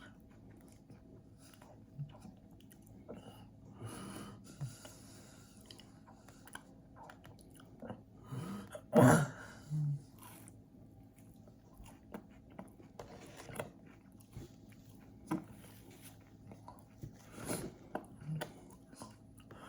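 A person chewing and biting a Rice Krispie treat, with many small wet mouth clicks and crunches, and one much louder short sound about nine seconds in.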